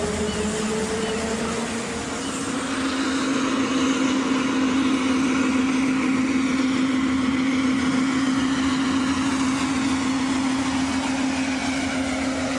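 Road vehicle running with a steady hum, which starts about two seconds in and holds steady.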